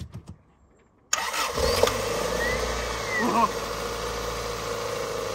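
Cold start of a Toyota Starlet's engine on a booster pack, its battery too weak to start it alone: a few light clicks, then about a second in the engine fires and settles into a steady idle.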